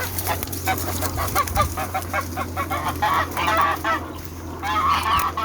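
Domestic geese honking: a quick run of short, repeated calls, then louder, longer honks about three seconds in and again near the end.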